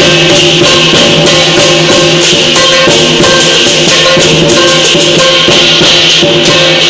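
Lion dance music, loud and unbroken, dominated by continuously clashing cymbals.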